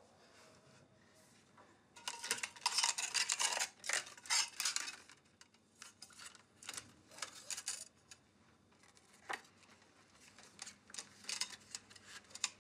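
Small objects clinking and rattling as someone rummages through a wooden sideboard, loudest for a few seconds about two seconds in, then scattered clicks and rustles of things being picked up and handled.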